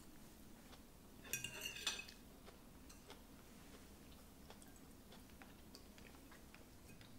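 Metal cutlery clinking against ceramic plates and bowls as people eat: a short cluster of ringing clinks about a second and a half in, then a few faint light taps.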